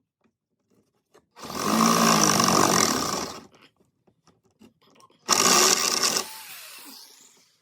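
Reciprocating saw (Sawzall) cutting through a rubber-topped metal roof rail in two bursts, about two seconds and then about one second long, the motor winding down with a falling whine after the second.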